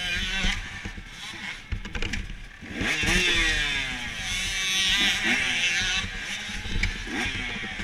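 Several motocross bikes revving at the starting gate before the start, their engine pitches rising and falling over one another. The revving gets louder about three seconds in.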